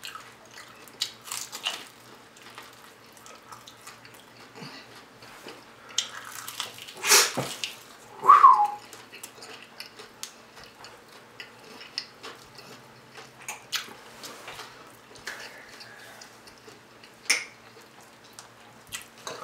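Close-miked eating of a fried chicken wing: scattered crisp crunches, chewing and mouth clicks. A louder crunch comes about seven seconds in, followed by a brief high, falling squeak.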